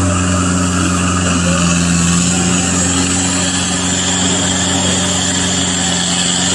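Mustang 940 skid loader's turbocharged Yanmar 4TNE84 four-cylinder diesel running steadily as the machine drives.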